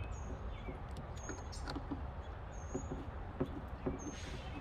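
Light clicks and knocks of hands and parts being handled inside a car door, over a steady low rumble, with short high chirps several times.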